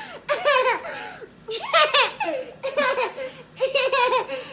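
A toddler laughing in high-pitched shrieks, about four bursts, each falling in pitch.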